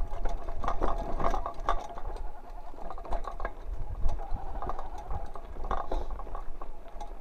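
Mountain bike rolling along a dirt single-track: tyres crunching on dirt while the bike rattles over bumps, with many irregular clicks and knocks over a steady low rumble.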